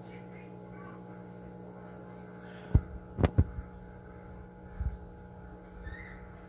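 Steady electrical mains hum, with a few dull low thumps around three seconds in and one more near five seconds.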